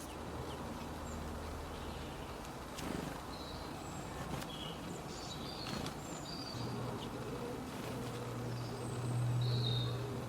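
Small birds chirping in short, high, scattered notes over an outdoor background, with a few faint clicks. A low steady hum sits underneath and grows louder over the last few seconds.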